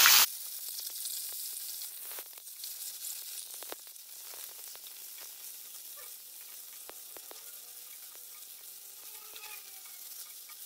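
Sliced brinjal (eggplant) frying in hot oil in a non-stick kadai: a steady sizzle, with a spatula scraping and tapping against the pan as the pieces are stirred. A much louder burst of sizzling cuts off abruptly right at the start.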